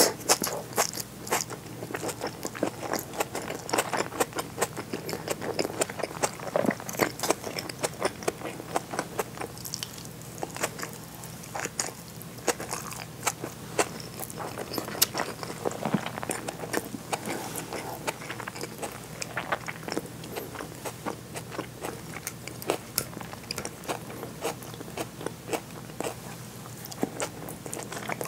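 Close-miked chewing of seared bonito and rice: a steady run of short, irregular wet mouth clicks.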